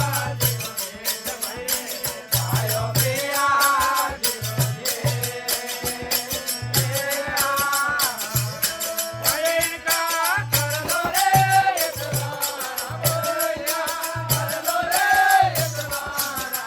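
Rajasthani desi bhajan music: a gliding melody line over steady jingling hand percussion and a repeated low beat.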